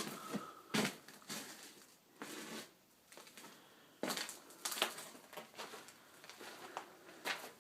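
Irregular footsteps, scuffs and knocks in a small room, with a lull about three seconds in.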